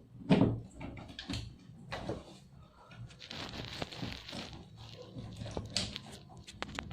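Hand tools working on a washing machine's plastic drain parts: irregular clicks, knocks and scrapes from a screwdriver and pliers, with a louder knock about half a second in.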